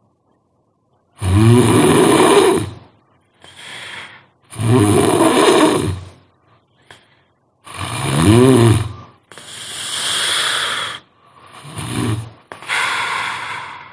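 A sleeping person snoring: about four loud, rasping snores a few seconds apart, some with a buzzing pitched tone, with quieter breaths and short silent gaps between them.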